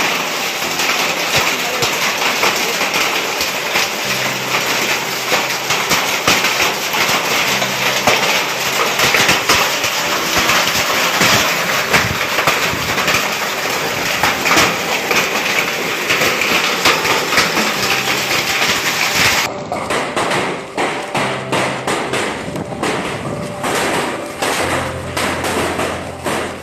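Heavy hail pelting down, a dense, continuous clatter of hailstones striking hard surfaces. About two-thirds of the way through the sound cuts to sparser, separate knocks of larger hailstones landing.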